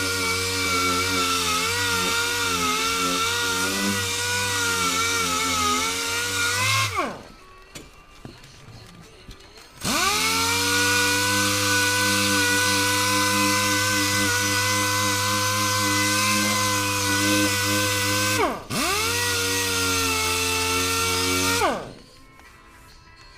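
Hand-held electric power tool running at full speed, its pitch wavering slightly under load at first. It is switched off and winds down about 7 s in, started again about 3 s later, cut and restarted almost at once about 18.5 s in, then switched off and winds down near the end.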